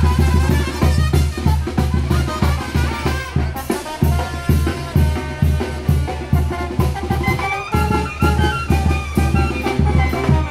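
Live brass band playing in the street: tuba and horns carrying a melody over a steady bass drum and snare beat.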